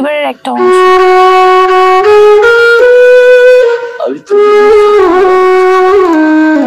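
Background film score: a wind instrument playing a slow melody of long held notes, with two short breaks between phrases.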